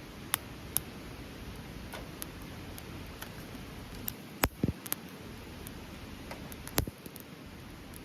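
Wood campfire crackling, with irregular sharp pops over a low steady background; the loudest pops come a little after halfway and again about two seconds later.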